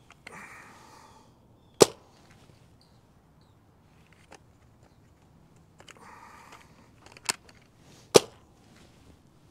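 Nerf Rival Curve Shot Flex, a single-shot foam-ball blaster, being primed and fired twice: a short rasping priming and loading sound, then the sharp snap of a shot, about two seconds in and again near the end. A smaller click comes just before the second shot.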